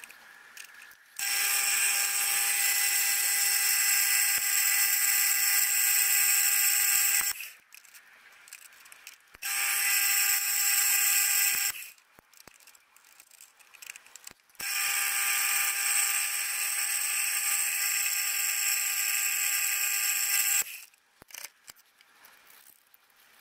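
Drilling machine running as it drills holes in steel slide bars, played eight times faster than life, so its motor sounds like a steady, high buzzing whine. The whine comes in three runs, the first and last about six seconds long and the middle one shorter, each starting and stopping abruptly.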